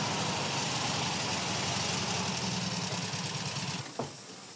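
Vintage Volkswagen combi's air-cooled flat-four engine idling steadily. It stops a little before four seconds in, followed by a single sharp click.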